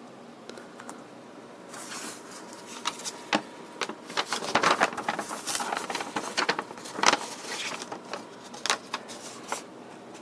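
Thin, newsprint-like paper rustling and crackling as an instruction sheet is unfolded and handled. The crackles start about two seconds in, are densest in the middle and die away near the end.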